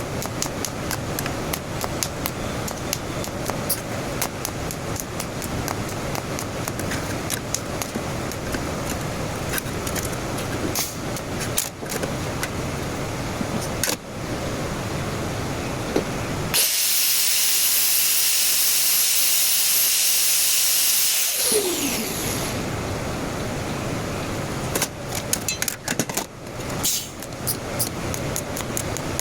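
TIG welding arc: a loud, steady hiss lasting about five seconds midway, ending with a short falling tone as it cuts out. Around it, a rough background of scattered clicks and knocks.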